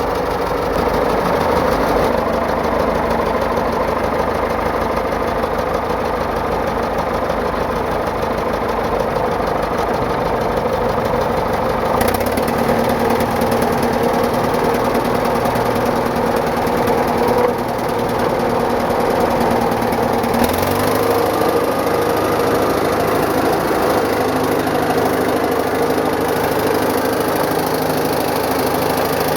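Cat 955 track loader's diesel engine running steadily, its tone shifting about twelve seconds in and again about twenty seconds in.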